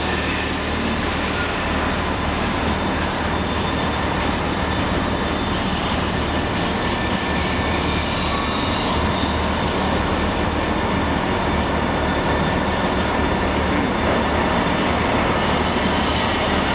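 Freight train of covered Shimmns steel-coil wagons rolling past at close range: a steady, loud rumble of wheels on the rails with a few thin, steady high tones.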